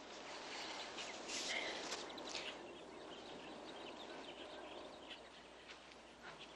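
Faint outdoor ambience: a steady soft hiss with a few scattered bird chirps.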